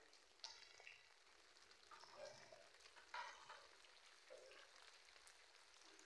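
Near silence with a faint patter of light rain and a few soft scattered ticks and rustles.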